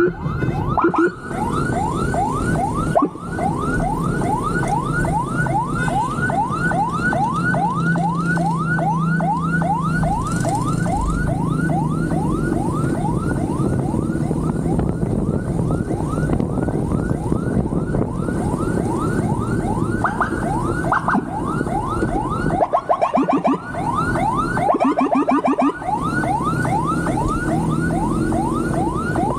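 Police motorcycle's electronic siren on a fast yelp: rapid rising sweeps, about four a second, over steady engine and wind rumble, with a couple of short breaks about three-quarters of the way through.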